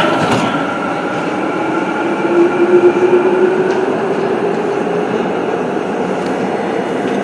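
Korail 351000-series subway train running through a tunnel: steady rumble of wheels on rail with a motor whine that climbs slowly in pitch.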